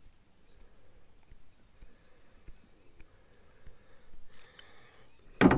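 Faint, scattered small clicks of steel pliers gripping and rocking on a barbed fishhook to break the barb's tip off. A brief high trill comes about half a second in, and a short, sharp, loud sound comes near the end.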